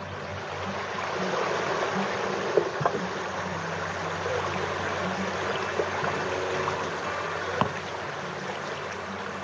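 Steady rush of flowing water, with a few sharp knocks.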